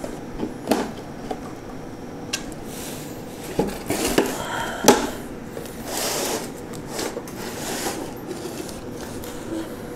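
Laminated shelf unit being tipped and shifted about on a sheet of cardboard: a string of knocks and clicks, the loudest about five seconds in, with cardboard scraping and rustling in between.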